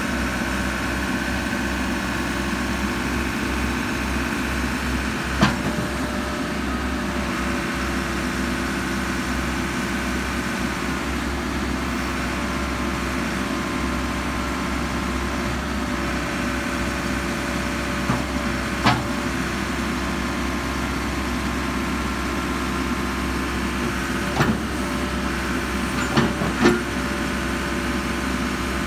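Caterpillar 426 backhoe loader's diesel engine running steadily while the backhoe boom and bucket are worked, with a few sharp clunks: one about five seconds in, one past the middle, and several close together near the end.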